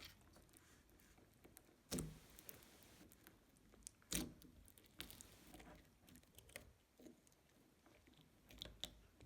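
Faint, scattered crunches and bubble pops from a beaded sugar scrub slime being squished and stretched by hand, a few separate pops every second or so.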